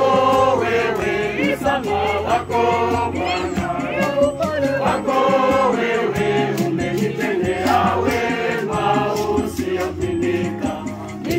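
A choir singing a Swahili praise hymn, with steady low bass notes held beneath the voices.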